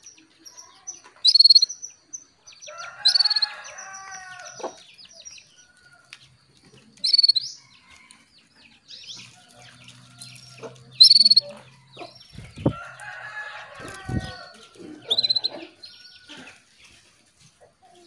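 Female canary calling to a male with short, sharp, high chirps about every four seconds and softer twittering between them. A longer, lower bird call sounds twice in the background, and two dull thumps come near the end.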